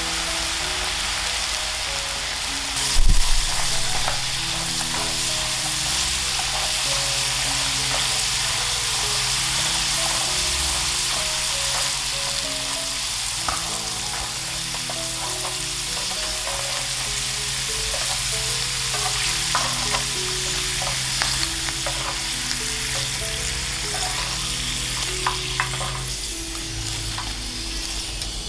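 Potato sticks deep-frying in hot oil in a pan, a steady dense sizzle, with wooden chopsticks and a wire mesh strainer clicking against the pan. There is one louder knock about three seconds in, and near the end the sizzle thins as the fries are lifted out in the strainer.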